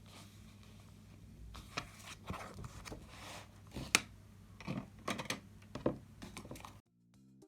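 Irregular light clicks, taps and rustles of small objects being handled over a low hum, with one sharper click about four seconds in.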